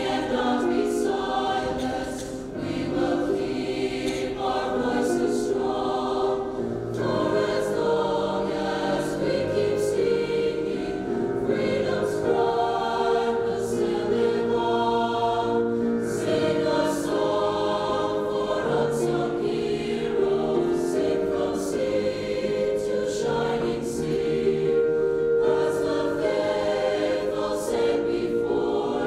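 High school choir singing a choral piece, with several voice parts in harmony.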